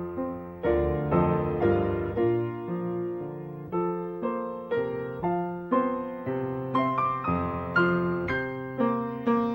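Piano music: an unhurried tune of struck notes and chords, about two a second, each one fading after it is played.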